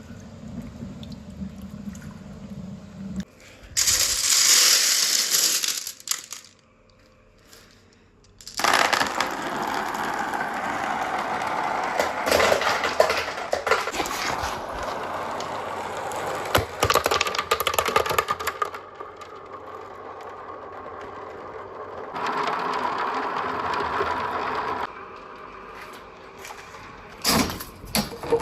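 Lots of marbles rolling and clacking through PVC pipe tunnels and plastic rain-gutter chutes, with water rushing along them. There is a short burst of rushing about four seconds in, a brief lull, then a long stretch of dense rolling and clattering, and a further steady run of rolling near the end.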